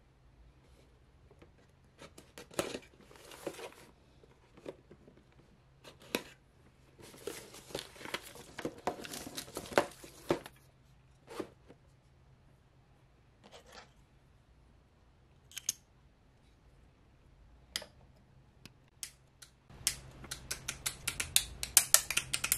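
Handling noises from unboxing a Bandai Pokémon plastic model kit: scattered taps and rustles of the cardboard box and the bagged plastic parts. Near the end comes a quick run of sharp plastic clicks as the hands work the yellow parts runners.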